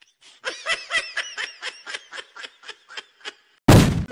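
High-pitched snickering laughter: a rapid run of 'hee-hee' pulses, about five or six a second, for about three seconds. Near the end it is cut off by a sudden, very loud bang-like burst.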